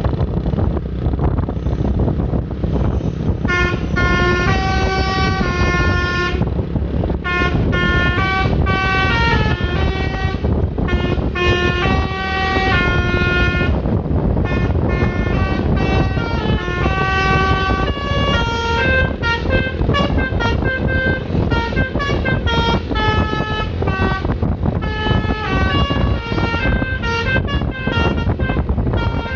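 A bus's basuri multi-note telolet horn playing a melody of short stepped notes, starting about three and a half seconds in with brief pauses, over steady road and engine noise.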